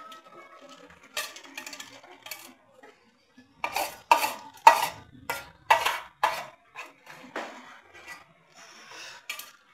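Metal kitchen pots and utensils clattering: a few light clinks, then a run of about eight sharp, loud clanks in quick succession midway, followed by softer knocks.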